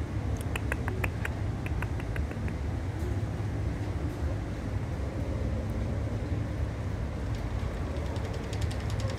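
White cockatoo's beak clicking against the wire cage mesh: a run of sharp clicks in the first two and a half seconds, and a faster, fainter run near the end, over a steady low rumble.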